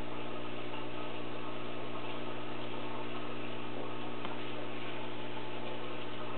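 Steady electrical hum with an even hiss behind it and a few faint ticks.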